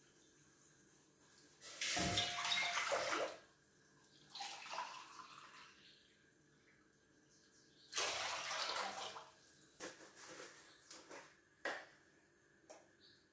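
Water poured from a jug and a plastic cup into an aluminium cooking pot, in two main splashing pours with a shorter one between. A few light clicks near the end.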